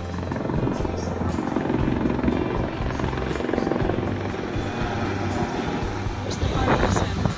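Music with a steady beat, mixed with a loud rushing, rumbling noise and a brief louder burst near the end.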